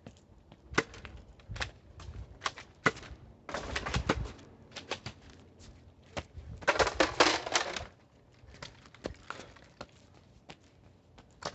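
Irregular sharp clicks and knocks, with a rustling burst about three and a half seconds in and a dense rattling run of clicks about seven seconds in.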